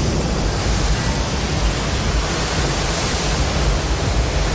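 Steady rushing of a flooded river in torrent: a dense, even wash of water noise.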